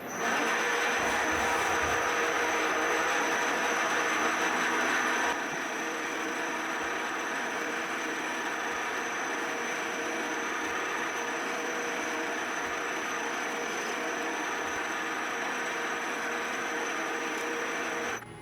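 CNC-converted milling machine running: a steady mechanical rushing noise with a constant high whine. It gets a little quieter about five seconds in and stops abruptly near the end.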